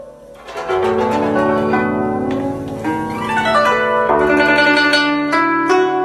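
Solo guzheng (Chinese zither) playing: after a brief soft lull, fast, loud plucked notes come back in under a second in, ringing over a sustained low bass note.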